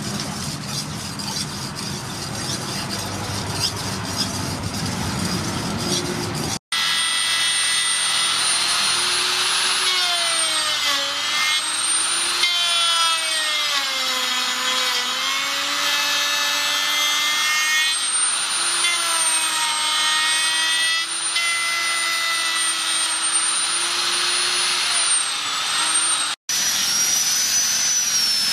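A steel blade is worked back and forth on a sharpening stone, a rough scraping rhythm. About six seconds in it gives way to an electric plunge router cutting into a wooden plank, its motor whine sliding up and down in pitch as it bears into the wood. Near the end an angle grinder with a sanding pad takes over, a higher steady whine.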